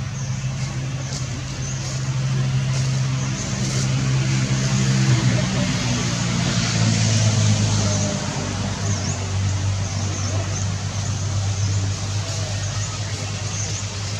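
A motor engine running steadily with a low hum, its pitch stepping down a little about six to eight seconds in. Faint high chirps repeat over it.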